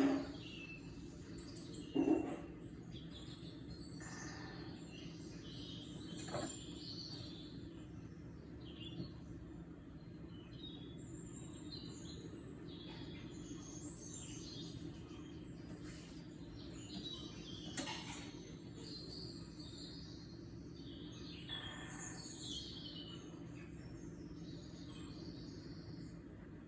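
Birdsong playing from a YouTube video: many short, high chirps and tweets scattered throughout over a steady low hum, with a brief louder sound about two seconds in.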